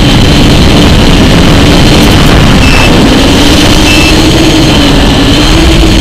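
Loud, steady wind rush on an FPV model plane's onboard camera microphone, with a hum that drifts up and down in pitch beneath it. Two short high beeps come about three and four seconds in.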